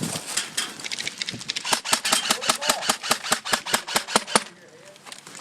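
Airsoft gun firing rapidly: a fast run of sharp cracking shots, about six a second, that stops a little before the end.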